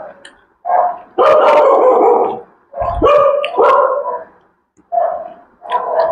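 Dogs barking repeatedly: about six loud barks in a row, a couple of them drawn out.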